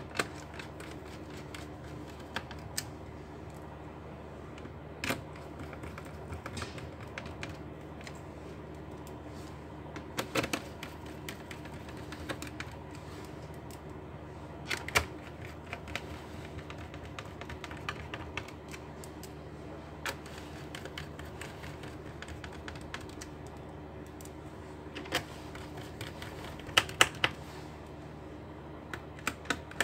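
Scattered small clicks and taps of a screwdriver, screws and plastic case parts as a laptop is screwed back together, over a steady low hum.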